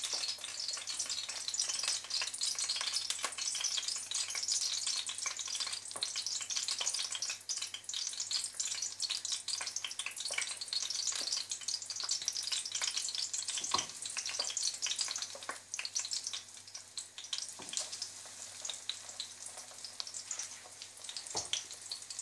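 Egg-battered slices of liver mushroom (beefsteak fungus) sizzling and crackling in hot vegetable oil in a frying pan, as more pieces are laid in. The spattering eases somewhat about two-thirds of the way in.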